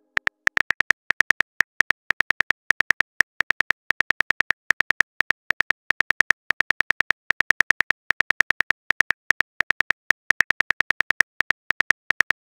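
Phone keyboard key clicks, one for each letter as a text message is typed, in a fast run of about eight or nine a second with short pauses between bursts.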